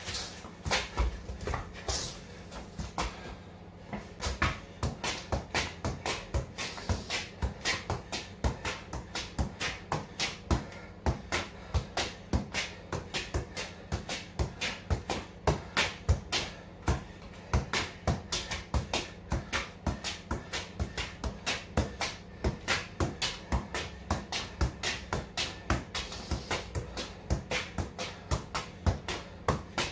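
A football being touched repeatedly with the feet: a few scattered dribbling touches at first, then a steady run of keep-ups, a short thump at each touch, about two to three a second.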